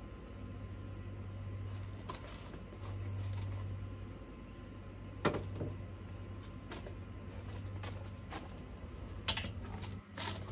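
Scattered sharp clicks over a steady low hum. The loudest click comes about five seconds in, and several more follow close together near the end.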